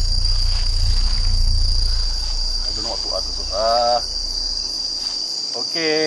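Steady high-pitched chorus of night insects, crickets among them, holding one unbroken pitch throughout. Under it a low rumble fades out about five seconds in.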